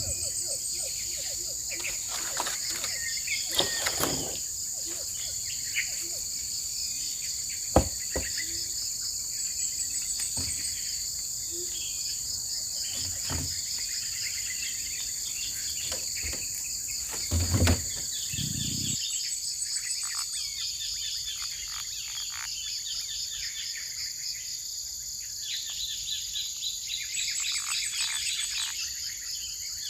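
A steady, high-pitched chorus of forest insects with short bird chirps over it. Scattered knocks and thumps come in the first part, the loudest about two-thirds of the way through.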